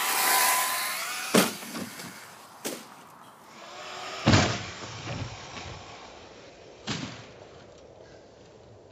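Traxxas Slash RC truck thudding down hard, about four separate heavy knocks a second or two apart, the loudest a little before halfway, after a burst of electric motor noise at the start.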